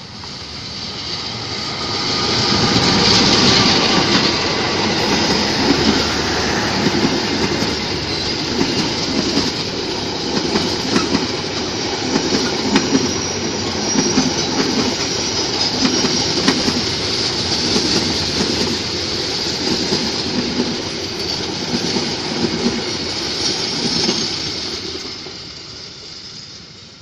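A train passing close by: steel wheels clatter in a regular beat over the rail joints, with a high steady ring from wheels on rail. It builds over the first few seconds and fades away near the end.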